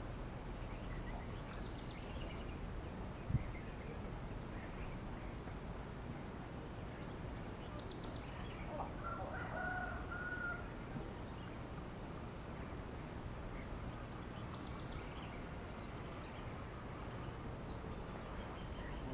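Distant birds calling over steady low outdoor background noise: a short, high pulsed chirp repeats about every six seconds, and a longer call comes about halfway through. A single sharp knock about three seconds in is the loudest sound.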